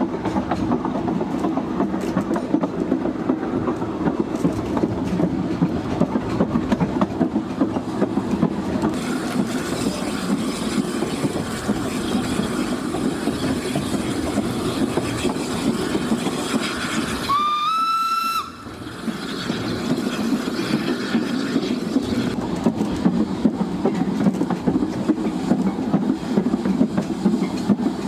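Narrow-gauge train carriages running along the track behind the Garratt K1 steam locomotive: a steady rumble with the clatter of wheels over rail joints. Just past the middle, the locomotive's steam whistle sounds once, briefly, for about a second.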